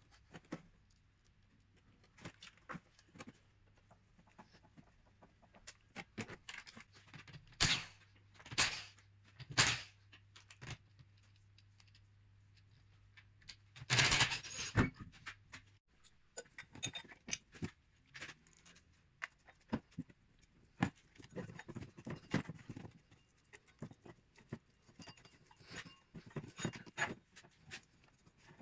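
Scattered clicks, knocks and rattles of tools and parts being handled during engine strip-down, with a loud burst of about a second and a half halfway through from an air impact gun undoing the wheel bolts. A faint low hum runs through the first half and stops just after the burst.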